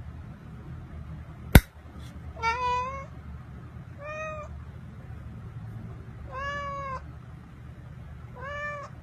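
A domestic cat meowing four times, each meow about half a second long, with a sharp click just before the first meow.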